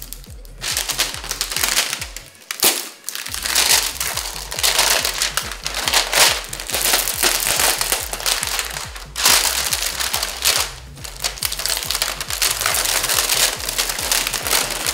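Protective plastic film being peeled off a new TV, with several long tearing pulls separated by short pauses, under background music.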